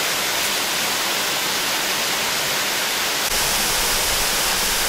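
Waterfall cascading over rock: a steady, dense rush of water, with a deeper rumble coming in about three seconds in.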